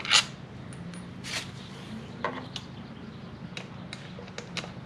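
A few scattered light clicks and taps of metal bolts and a cordless impact driver being handled, with the driver not running.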